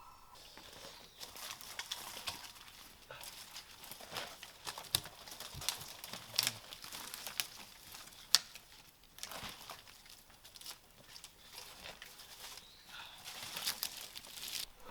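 Irregular rustling and crackling, like dry leaves and twigs being stepped on or handled, with scattered sharp snaps; the loudest snap comes about eight seconds in.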